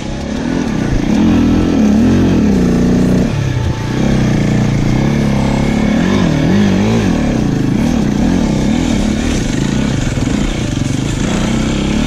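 KTM enduro motorcycle engine, heard on board, revving up and down in repeated swells as the bike is ridden along a snowy trail, with a short drop in throttle about three and a half seconds in.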